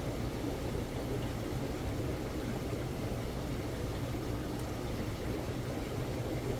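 Steady low hum with a rushing water hiss from a saltwater aquarium's pumps and filtration running.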